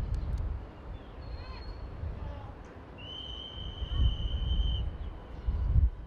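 A single long, steady high-pitched whistle blast of almost two seconds, starting about three seconds in, over low rumbling outdoor noise. Brief chirps, likely birds, come earlier.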